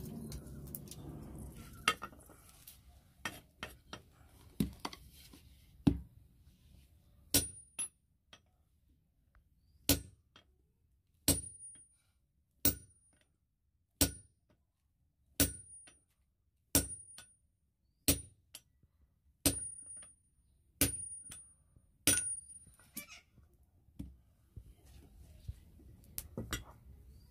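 Hammer blows on glowing-hot steel held on an anvil: about eleven sharp strikes at a steady pace, roughly one and a half seconds apart, each with a short high ring. Lighter, irregular clinks of metal tools come before the strikes, and fainter knocks after.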